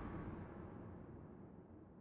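The soundtrack's closing impact dying away: a low rumble that fades steadily toward near silence.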